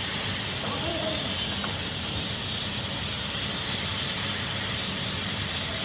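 Steady hissing noise over a rough low rumble.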